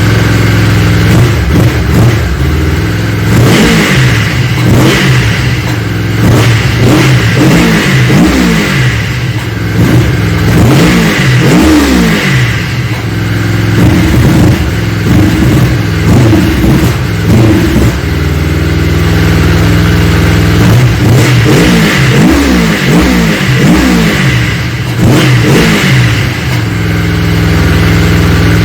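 Yamaha Phazer snowmobile's four-stroke twin engine idling and being blipped repeatedly, the revs rising and dropping back each time, with spells of steady idle between. It does not rev out freely: the TORS throttle-override safety system is tripping and holding the engine back.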